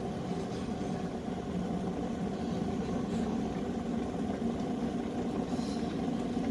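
COMFEE 1.7-litre stainless steel electric kettle heating water close to the boil: a steady rumble that grows slightly louder.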